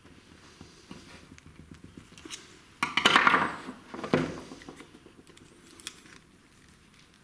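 Hand tools handled on a wooden table: light metal clicks as long-nose pliers work a small metal fitting on a cord end, then, about three seconds in, a sudden louder clatter of a screwdriver being put down on the wood, with a second knock a second later.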